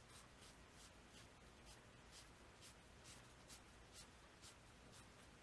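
Faint, soft strokes of a size 8 watercolor brush spreading wet paint across paper, about two strokes a second.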